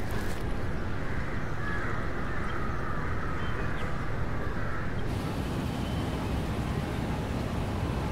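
Outdoor street background sound: a steady low rumble, with a higher layer of calls or chatter that stops abruptly about five seconds in, where the sound changes at a cut.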